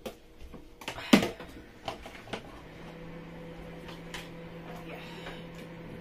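A metal slotted spoon knocking and scraping against a plastic tub and the rim of a steel cooking pot as pieces of fish are dropped into the soup: a series of short clinks and knocks, the loudest about a second in. From about two and a half seconds in, a steady low appliance hum runs underneath.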